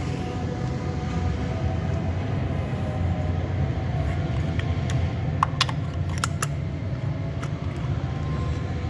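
Steady low mechanical rumble, with a few sharp clicks between about four and six and a half seconds in.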